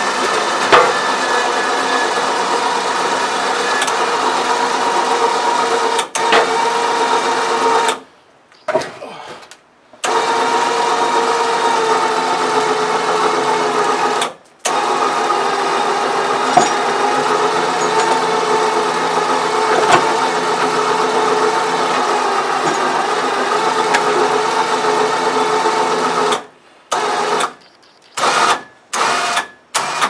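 A 4500 lb electric winch motor runs steadily, hauling on its synthetic line. It stops sharply twice, about a third and about halfway through, then is jogged on and off in several short bursts near the end.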